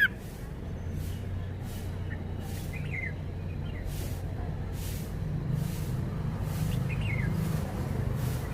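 Red-whiskered bulbul giving two faint short chirps, about 3 seconds and 7 seconds in, between song phrases, over a steady low rumble.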